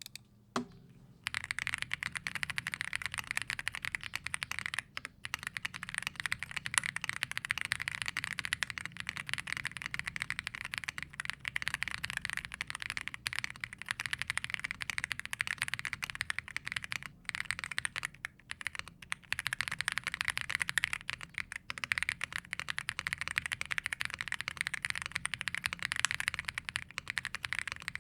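Womier RD75 75% mechanical keyboard typed on in its stock build: factory-lubed full-POM linear switches under cherry-profile PBT keycaps, gasket-mounted. A fast, dense stream of keystroke clacks begins about a second in and carries on, with a few brief pauses.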